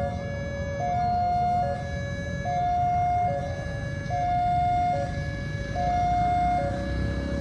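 Railway level-crossing warning alarm sounding a two-tone signal, a higher and a lower tone alternating, each held just under a second, over a low rumble. It signals an approaching train as the crossing barrier closes.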